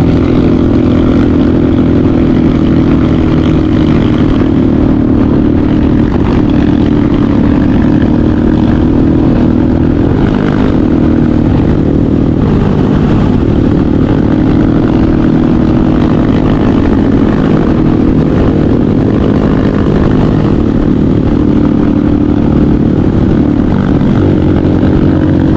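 Motorcycle engine running under way at a fairly steady pitch, close to the microphone.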